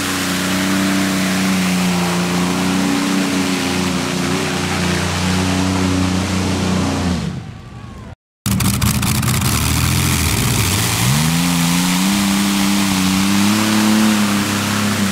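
Twin V12 Allison aircraft engines of a modified pulling tractor running at high rpm under load while dragging the sled, a loud steady drone. About seven seconds in the pitch falls and the sound fades out. After a brief silence it returns, dips, and climbs back to a steady high pitch.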